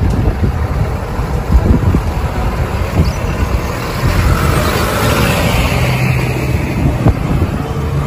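Small cab-over tow truck driving through a road junction with a car in tow, its engine and tyre noise mixed with passing street traffic. The sound is a steady, fairly loud rumble without breaks.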